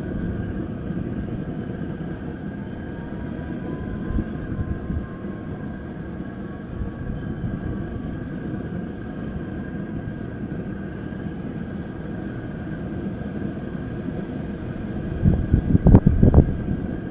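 Propane crawfish-pot burner running with a steady low rumble under the boil pot. A few loud knocks near the end.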